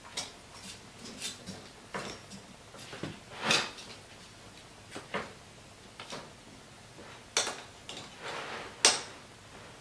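Irregular clicks, taps and short scrapes of metal LED spotlight brackets and plastic parts being handled and fitted onto an electric scooter's stem by hand, with a few sharper knocks, the sharpest near the end.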